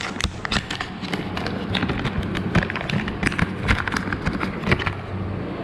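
Hands handling and fitting small plastic camera accessories: a rapid, irregular run of clicks and taps that stops about five seconds in, over a steady low hum.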